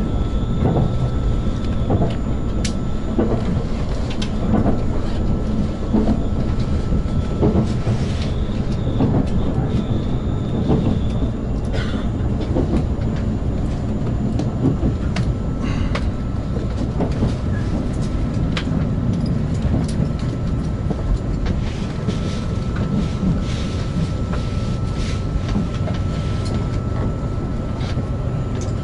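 Passenger train running on rails and slowing down from about 80 to under 20 km/h, heard from inside the car: a steady low rumble with clickety-clack of the wheels over rail joints, the clicks coming further apart as it slows. A thin steady whine sounds over it for much of the time.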